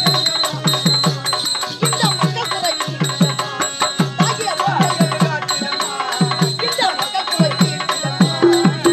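Therukoothu folk-theatre accompaniment: a two-headed hand drum plays fast strokes whose low notes slide down in pitch, under a melody line. A steady high ringing tone sits above throughout.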